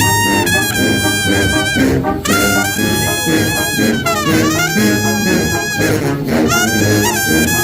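Banda sinaloense brass band playing, with trumpets and trombones sounding held notes over a low tuba bass line. About four seconds in, a pitch slide falls and then rises again.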